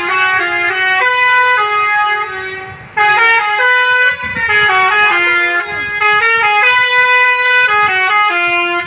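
Indonesian bus 'telolet' musical air horn playing a melody, several horn notes sounding together and stepping from pitch to pitch. It dips briefly just before three seconds in, comes back loud, and stops suddenly near the end.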